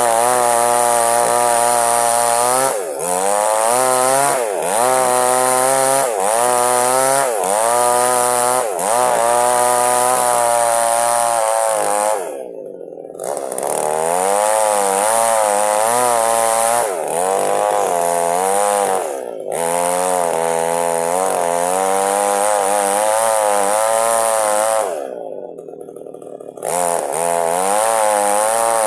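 Two-stroke chainsaw running at high revs while cutting through wood to split it in two, its pitch wavering up and down as the chain loads and recovers in the cut. Twice, about twelve seconds in and near the end, the engine drops to idle for a second or so, then revs back up.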